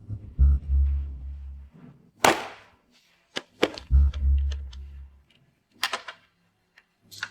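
Intro music: a deep bass note held for about a second, repeating every three and a half seconds, with sharp percussive hits between the notes.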